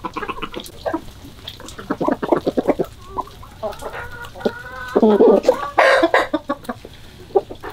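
A flock of domestic chickens, hens and roosters, clucking in quick runs, with a louder, longer call from one bird about five seconds in.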